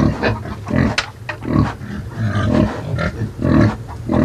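A pig grunting repeatedly, short low grunts about once a second.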